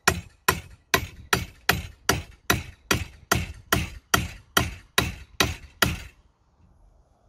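Hand hammer striking repeatedly: about fifteen sharp blows at a steady pace of about two and a half a second, stopping about six seconds in.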